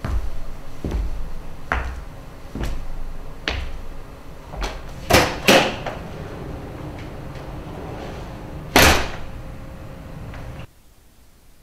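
Footsteps on a hard stage floor, about one a second, then two louder bangs close together about five seconds in and another near nine seconds, over a faint steady hum. The sound cuts off suddenly near the end.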